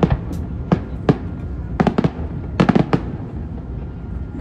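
Fireworks bursting overhead: a run of sharp bangs, some single and some in quick clusters of three or four, a dozen or so in all.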